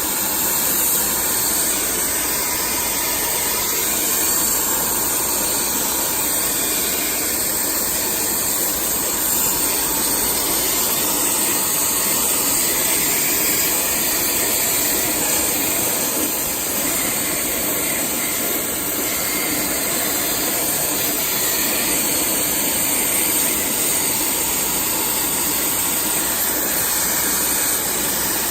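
Steady hiss of a pressure-washer water spray washing the inside of a room air conditioner, with no break.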